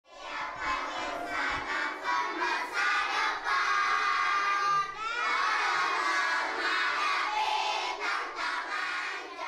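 A large group of children shouting and cheering together, many voices at once, starting abruptly and keeping up steadily.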